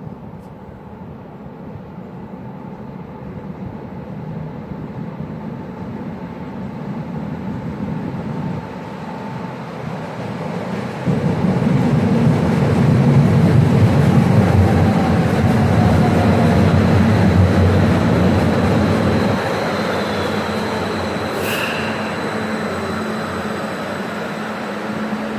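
Stuttgart Stadtbahn light-rail train arriving at the stop: its running noise builds up, is loudest for about eight seconds in the middle with a motor whine falling in pitch as it brakes, then eases off as it slows. A brief high squeal comes near the end.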